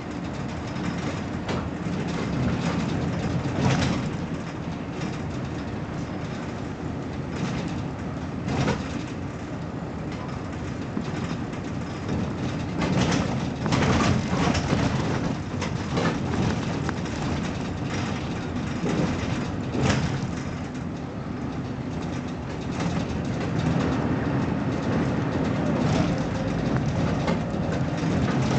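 BMC Belde 220-SLF city bus on the move: a steady low engine and road rumble, with rattles and sharp knocks from the bodywork every few seconds.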